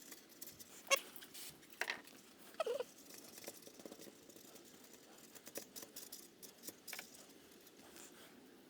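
Faint, intermittent rubbing and scraping with a few sharp clicks: oil being cleaned off a gasket on a Yamaha YZ250 engine.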